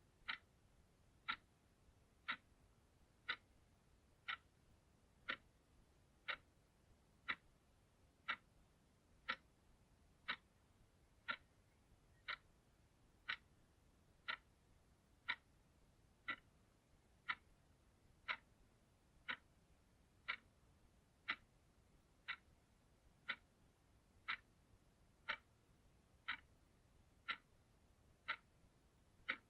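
Clock ticking steadily, one sharp tick about every second with near silence between.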